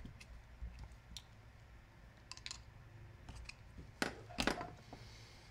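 Scattered light clicks of hand tools being handled against the sander's metal housing, with two louder sharp clacks about four seconds in as a pair of pliers is picked up off the bench.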